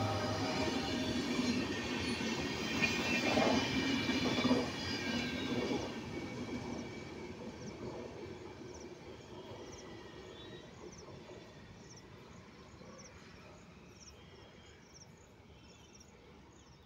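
Passenger train coaches rolling past on the rails, the wheels rumbling and clattering with a high ringing over it in the first few seconds. The sound then fades steadily as the train moves away.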